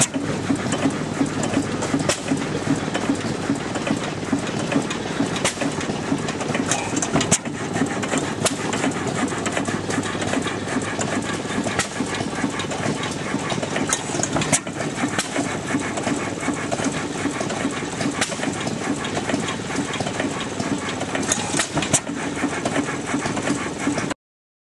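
Foos Jr. 6 hp single-cylinder hit-or-miss stationary engine running, its flywheels turning with a steady rapid mechanical clatter, with a few sharper knocks standing out.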